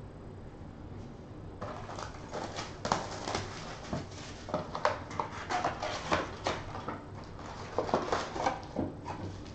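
A cardboard trading-card box being opened and the packs inside handled: quick, irregular crinkling, rustling and tearing of cardboard and wrappers, starting about one and a half seconds in.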